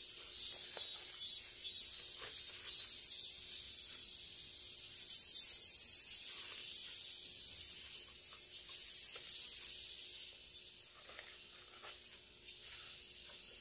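Steady high-pitched drone of summer insects, swelling a little in the middle, with a few faint rustles among the leaves.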